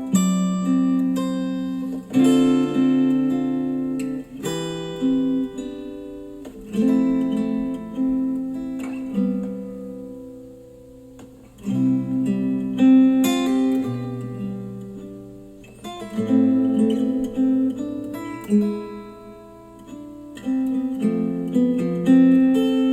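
Acoustic guitar music played back through KEF R3 bookshelf speakers: plucked chords struck every second or two, each ringing and dying away before the next.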